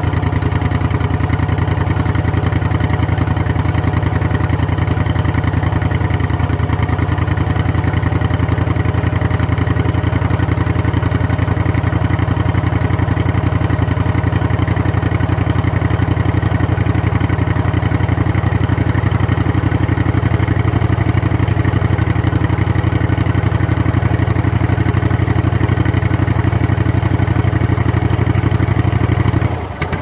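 24 hp Honda V-twin engine of a Wacker Neuson RD12 vibratory roller idling low and steady through a straight-pipe exhaust, just after a cold start without choke, heard right at the exhaust outlet. The sound dips briefly near the end.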